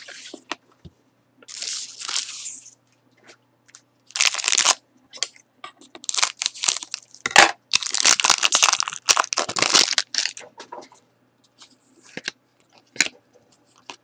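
Foil wrapper of a Panini Select hockey card pack being crinkled and torn open by hand, in several bursts. The longest and loudest tearing comes about six to ten seconds in, followed by a few light clicks.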